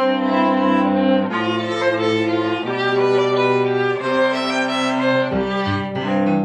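A string trio of violin, viola and cello playing slow bowed chords, each held for about a second and a half before changing. Deeper bass notes come in near the end.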